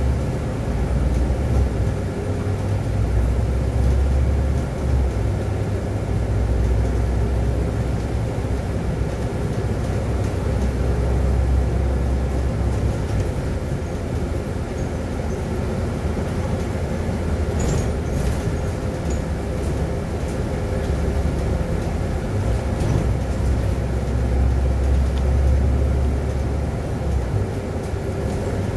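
Engine and road noise inside a moving city bus: a steady low rumble that swells and eases slightly as the bus drives, with a faint steady drone over it and a few brief clicks about eighteen seconds in.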